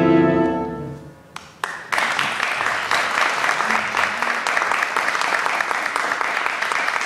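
A jazz band's final held chord on horns and rhythm section, cut off and dying away within the first second. After a brief lull, an audience breaks into steady applause about two seconds in.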